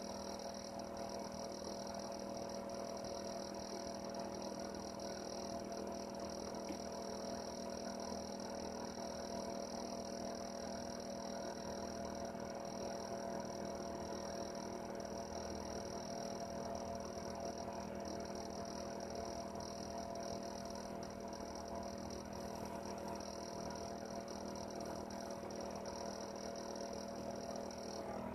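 Heater running with a steady hum and a high hiss.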